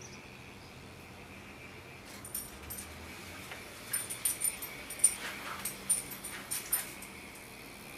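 Sharp metallic clicks and taps, several a second from about four to seven seconds in, as hands and pliers work the loose clip on the spark plug wire's boot. A faint steady high whine runs underneath.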